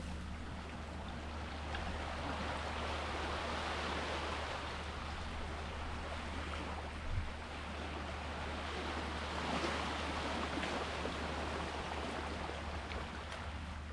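Sea waves washing ashore, swelling and easing in slow surges over a steady low rumble, with one short knock about seven seconds in.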